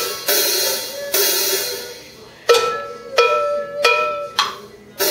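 A drum kit played by a toddler: two cymbal crashes that ring and fade, then from about halfway a string of single ringing drum strokes a little over half a second apart, and another crash near the end. This is a small child trying to get a 4/4 beat.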